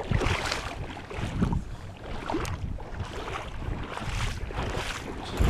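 Wind buffeting the microphone: an uneven low rumble that swells and drops, with a few brief scattered noises.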